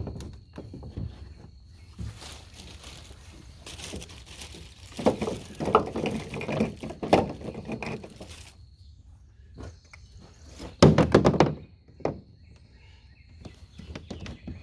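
Plastic pipe and fittings knocking and clattering as they are handled and pushed together, with the loudest run of knocks about two-thirds of the way through.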